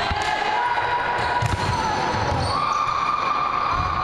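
Basketball game on a sports-hall court: the ball bouncing on the floor, sneakers squeaking as players cut and stop, and players' voices.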